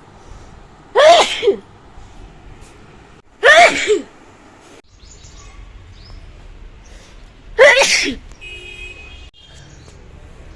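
A person sneezing loudly three times, each a short voiced burst falling in pitch, the second about two and a half seconds after the first and the third about four seconds later.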